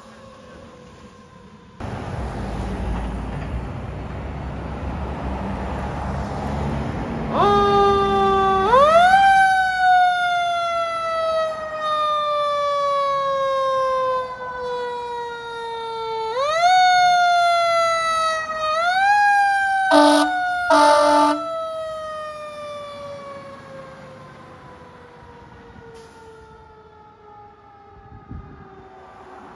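Fire truck siren that winds up quickly and then falls slowly in pitch, over and over, with the truck's engine rumbling before the siren starts. Two short horn blasts sound about twenty seconds in, and the siren then fades as the truck drives away. At the very start another fire engine's siren is fading in the distance.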